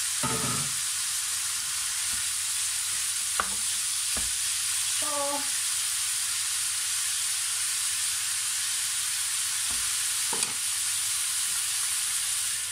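Diced bacon and pork sizzling steadily in a hot frying pan, stirred with a wooden spoon that knocks lightly against the pan a few times.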